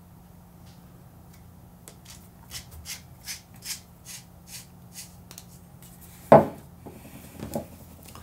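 The clamp knob on a Tricer LP tripod pan head is unscrewed all the way open. Its threads give a quick run of faint, gritty ticks, about four or five a second: the metal-on-metal feel of machining that the reviewer calls good but not premium. Near the end comes a single loud knock, then a couple of lighter knocks.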